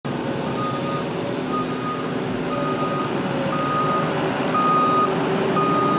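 Reversing alarm on heavy construction machinery beeping steadily, about one half-second beep a second, over the steady running of diesel engines.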